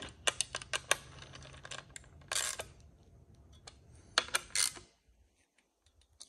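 Light metallic clicking and clinking of a small hand ratchet doing the final tightening of screws on an aluminium fuel pump mounting plate, in a few short runs that stop near the end.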